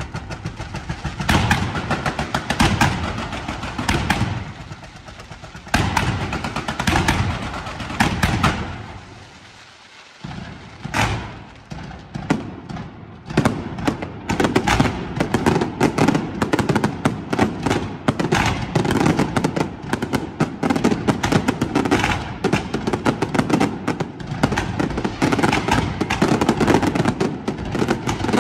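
Fireworks display: dense cracking bangs from aerial shells and firecrackers. They ease off briefly about ten seconds in, then come back as a near-continuous rapid crackle.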